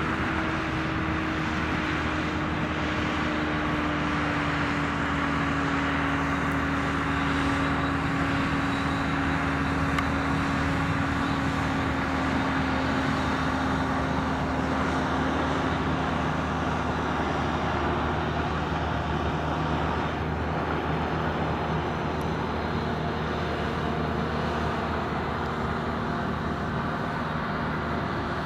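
Powered parachute's engine and pusher propeller droning steadily overhead, the pitch sliding slowly down over the first half.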